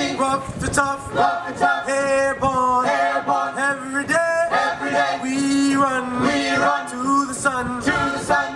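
Music: male voices singing without instruments, over a steady held low note.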